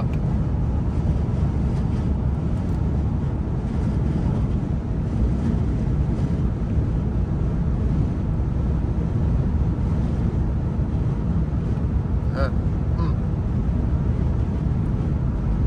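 Car driving at highway speed: a steady low rumble of road and wind noise heard inside the cabin.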